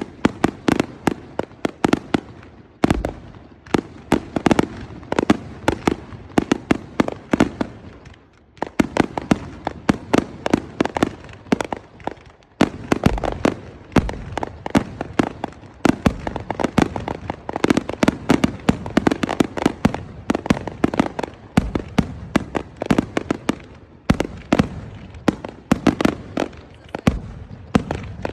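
Fireworks going off in a rapid barrage: many quick sharp bangs and crackles without pause, with a few deeper heavy booms and two brief lulls.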